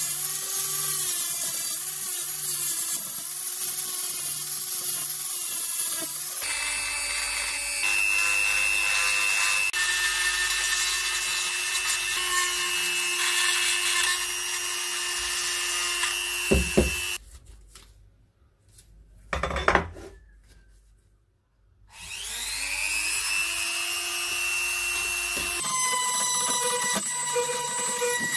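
An angle grinder with an abrasive disc grinds rust off a steel wrench for about six seconds, its sound swelling and easing as it is worked back and forth. Then a corded rotary tool with a small grinding bit runs with a steady high whine on the wrench. It stops about halfway through, with a couple of sharp knocks, then spins back up with a rising whine.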